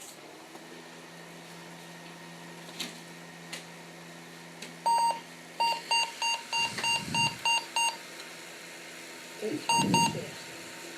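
A desktop PC powering on: a steady low hum from the machine, then the motherboard speaker sounds a BIOS POST beep code, one longer beep followed by a quick run of about eight short beeps, then more beeps near the end. The beep code is the board complaining that no graphics card is installed.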